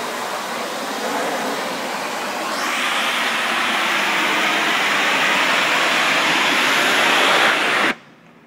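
Pressure washer wand spraying a wooden deck: a steady hiss of the water jet blasting the boards, growing louder about two and a half seconds in, then cutting off suddenly near the end.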